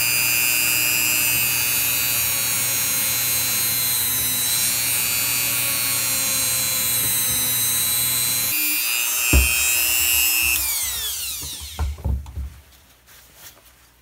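Handheld rotary tool spinning a polishing bit with compound in a port of an 80cc two-stroke cylinder: a loud, steady high whine, with a knock about nine seconds in. About ten and a half seconds in the tool winds down with falling pitch, followed by a few light knocks.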